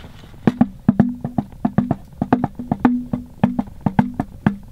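Hand drumming: fingers and palms tapping an uneven rhythm on a small round drum held in the lap, several strokes a second. Each stroke has a short, low ring, starting about half a second in.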